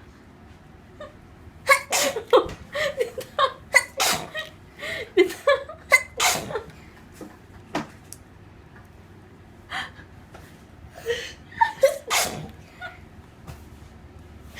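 A person sneezing over and over in quick succession: a rapid string of about a dozen short sneezes, a pause, then a few more near the end.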